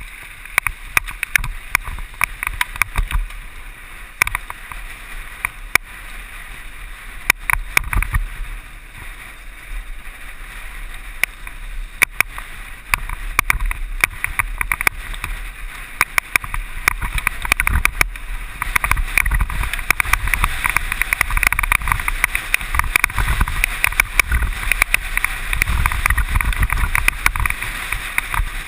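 Mountain bike descending a rough dirt trail at speed: frequent sharp rattles and clicks from the bike over a steady hiss of tyres on loose ground, with low wind rumble on the microphone. The hiss and rattling grow louder in the last third.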